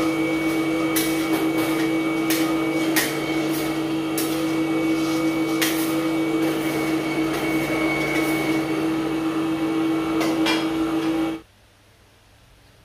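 Electric colloid-mill peanut butter grinder running with a steady hum while peanuts are poured and pushed into its steel hopper, with scattered sharp knocks and clatters. The sound cuts off abruptly near the end, leaving faint hiss.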